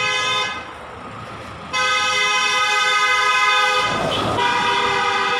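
Vehicle horn sounded in two long, steady blasts: the first cuts off about half a second in, and the second starts just under two seconds in and is held for about four seconds. A short rushing noise runs under the horn about four seconds in.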